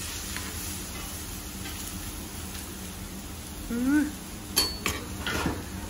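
Yakisoba and okonomiyaki sizzling steadily on a teppan griddle, with a few metal clinks of spatula or dishes just before five seconds in. A brief voice is heard about four seconds in and again near the end.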